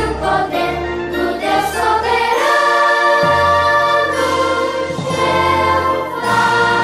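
Recorded choral song of praise to Jehovah, a choir with orchestral accompaniment; a long chord is held from about two seconds in and changes near the end.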